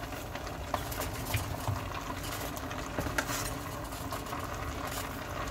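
Pan of sliced onions, bell peppers and carrots cooking in a vinegar mixture on the stove: a steady bubbling hiss, with a few light clicks scattered through it.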